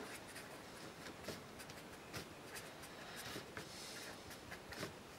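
Pen writing on a sheet of paper: faint scratchy strokes as a word is written out letter by letter, with a longer stroke about three seconds in.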